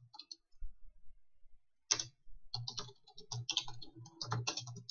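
Typing on a computer keyboard, a chat message being written: a few keystrokes at the start, a pause, then a fast, uneven run of keystrokes from about two seconds in.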